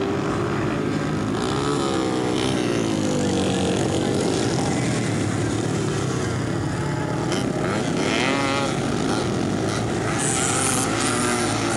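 Racing motorcycle engines revving as dirt-track bikes race through the turns, their pitch rising and falling over a steady noise of engines, with a sharp rise about eight seconds in.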